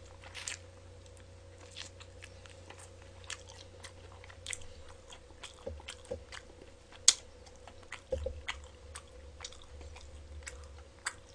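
A man chewing and biting fried chicken: irregular small crunches and wet mouth clicks, with one sharper crunch about seven seconds in.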